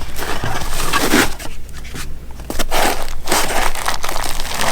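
Packaging crinkling and crunching as it is handled and opened by hand, in two spells with a quieter gap of about a second between them.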